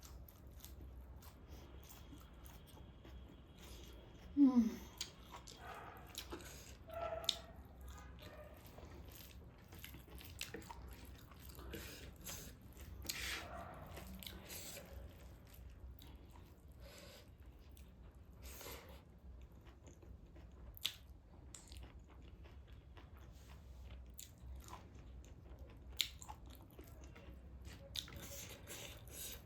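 Close-miked chewing and mouth sounds of a person eating taro root with dried meat, with many small clicks throughout. A short falling hum about four seconds in is the loudest sound.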